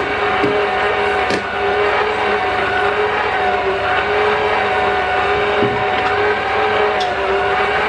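Electric stand mixer running at a steady speed, its motor giving a constant whine as the beater turns through stiff dough in a stainless steel bowl, with a few faint knocks.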